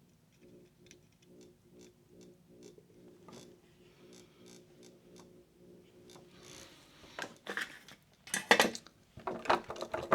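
Small clicks and clatter of hand tools and wire being handled on a workbench while soldering a radio's circuit board, sharper and louder in the last few seconds. Under it is a faint, steady, pulsing hum.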